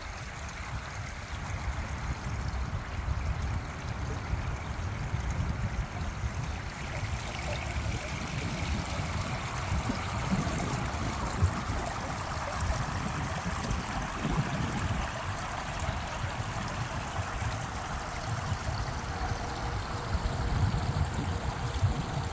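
Fountain water spilling over the rim of a pool and running down into a drain grate: a steady trickling wash of water, with a low rumble underneath.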